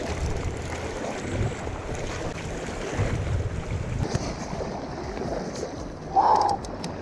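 Shallow river riffle rushing over rocks, with wind buffeting the microphone. A short loud burst of sound cuts in about six seconds in.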